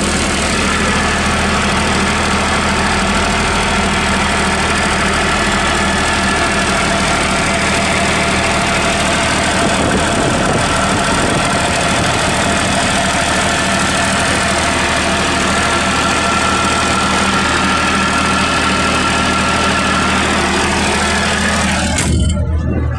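16 kVA diesel generator engine running steadily with a constant low hum. About a second before the end the higher noise drops away suddenly, leaving only the low hum.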